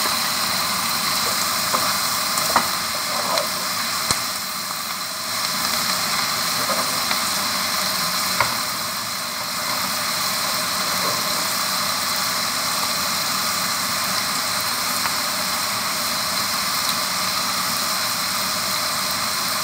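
Prawns, potato and onion stalks frying in a black wok, a steady sizzle, with a few knocks of a wooden spatula against the pan in the first few seconds.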